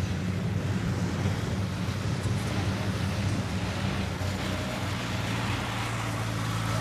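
Small tracked rice combine harvester running steadily while threshing: a constant engine hum under the rushing noise of the threshing drum and the straw being thrown out.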